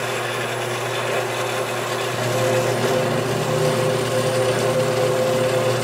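Vertical bandsaw running and ripping a length of brass bar stock lengthwise, a steady machine hum with the blade cutting the metal. One steady tone in the sound grows louder about two seconds in.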